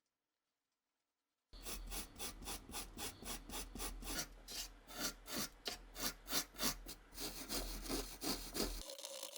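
Hand rubbing or abrading strokes, rapid and evenly repeated back and forth, several a second, starting about a second and a half in and running together into continuous rubbing near the end.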